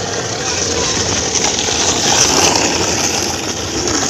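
Skateboard wheels rolling on a paved road: a steady, loud rolling noise.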